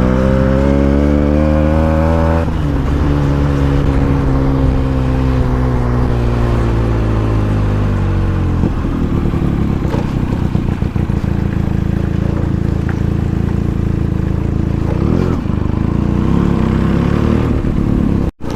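Benelli TNT 300's 300cc twin-cylinder engine through an aftermarket Akrapovic exhaust, loud. It revs up for the first two seconds or so, then falls in a long smooth glide as the throttle closes, and settles to a steady low-rev running note with some rattle until an abrupt cut near the end.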